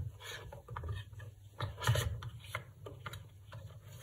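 Hands handling a cardboard phone box and its packed accessories: soft rubbing and scraping of packaging with a few light knocks, the strongest about two seconds in.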